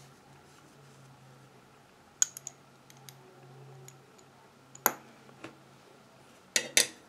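A few sharp clicks and taps of glass and metal from handling the small glass alcohol burner of a toy Stirling engine while its cotton wick is fitted, with a louder double click near the end.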